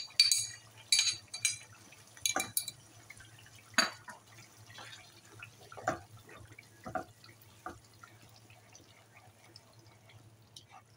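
A metal spoon clinks and scrapes as onion paste is tipped into a nonstick frying pan. Then a wooden spatula stirs it into thick, wet masala gravy, knocking against the pan now and then; the knocks thin out toward the end.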